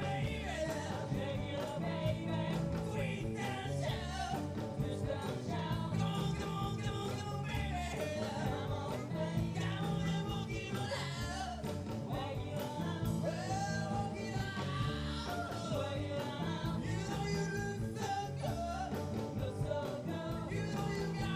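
Live band playing a rock song, with a lead vocal over a steady bass line.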